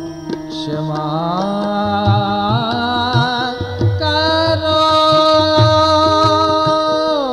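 Indian devotional kirtan music between sung lines: long held melodic notes that slide up in pitch about a second in and fall away near the end, over a steady drone and a regular tabla beat.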